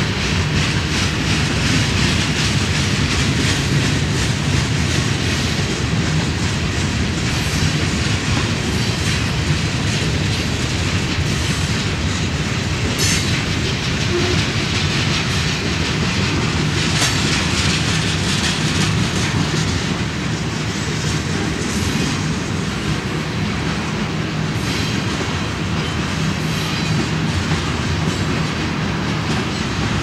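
Freight cars of a long mixed freight train rolling past: boxcars, covered hoppers and tank cars making a steady rumble of wheels on rail. A few sharp clanks stand out along the way.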